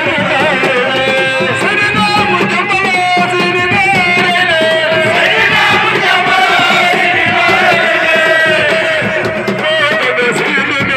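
Music with singing: a sung melody over a steady accompaniment, with some percussion.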